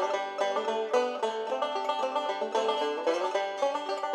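Background music: a banjo tune of quick plucked notes.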